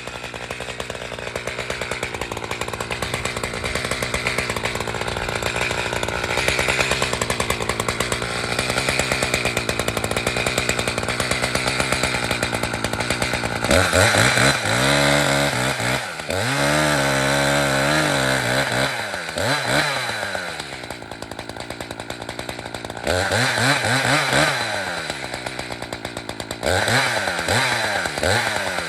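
Two-stroke chainsaw cutting into a spruce trunk under steady load. From about halfway through, the engine revs up and drops back to idle several times.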